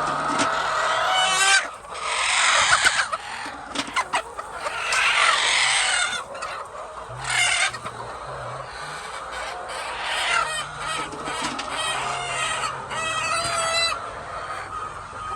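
A flock of chickens clucking and calling, many birds at once, with several louder bursts of calls.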